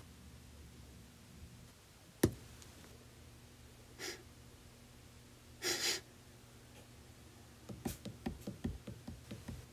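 Sound effects for a cartoon cat. One sharp knock, then a short sniff and a longer sniffing huff, then a quick run of about a dozen light taps near the end, like small padding steps. A faint low hum runs underneath.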